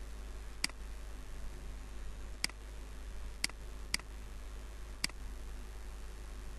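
Five sharp computer mouse clicks, irregularly spaced, over a steady low electrical hum and faint microphone hiss.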